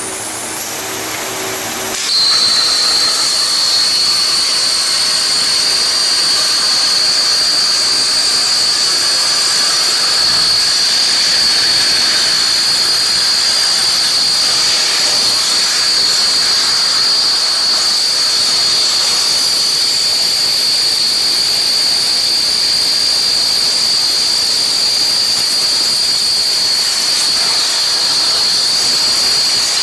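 Cutting torch of a CNC bevel cutting machine firing up and cutting metal: a loud steady hiss with a high, unwavering whine that starts suddenly about two seconds in and then runs on evenly.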